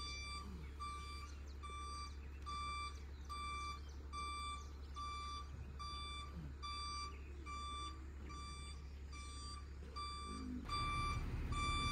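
Diesel truck's reversing alarm beeping steadily, about one and a half beeps a second, over the low hum of the running engine, which grows louder near the end.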